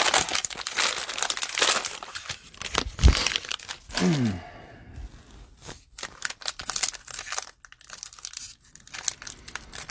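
Plastic wrapper of a football-card cello pack crinkling and crackling as it is torn open and handled by gloved hands to get the cards out. One sharp thump, the loudest sound, comes about three seconds in.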